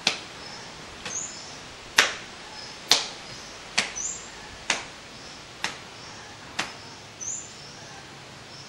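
Sharp slaps, about one a second, stopping near the end, with small birds chirping in the background.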